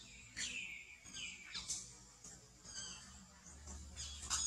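Short, high-pitched animal calls repeated every half second or so, each sweeping downward in pitch, over a faint low hum.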